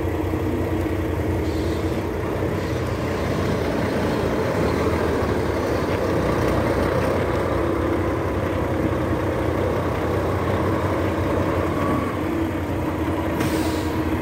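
Heavy truck's diesel engine running steadily, with a brief hiss near the end.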